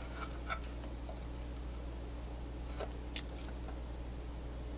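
Faint handling noise: a few light clicks and taps as gloved hands turn the soldering station's circuit boards and aluminium case, over a low steady hum.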